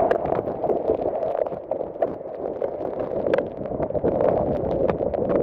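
Strong storm wind gusting through the trees and buffeting the microphone, with a tarp flapping and giving many sharp snaps and taps throughout.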